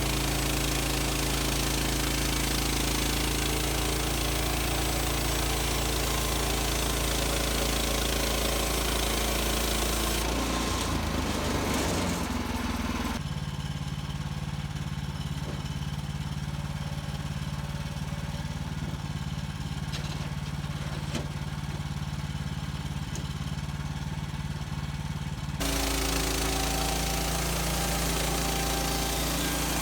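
The gas engine of a Woodland Mills HM130 Max portable bandsaw mill running steadily. About thirteen seconds in the sound drops suddenly to a quieter, plainer engine note, and near the end it jumps back to the louder, fuller noise.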